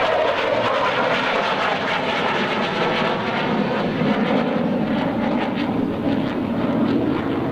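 F-16 Fighting Falcon jet engine, a loud, steady jet noise as the fighter flies its demonstration.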